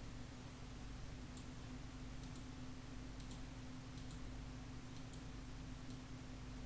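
Faint computer mouse clicks, about six scattered over several seconds, over a steady low electrical hum.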